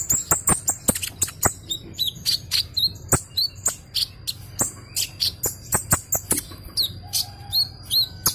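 Male Van Hasselt's sunbird (kolibri ninja) singing its full song: a fast, unbroken run of sharp high chips mixed with short rising-and-falling whistles, several notes a second.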